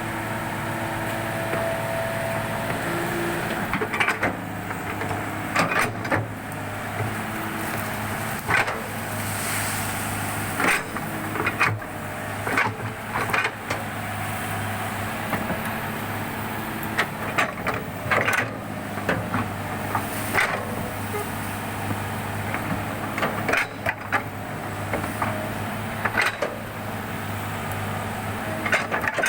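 Excavator diesel engine running steadily, with irregular sharp knocks every second or two as the machine works across the muddy ground.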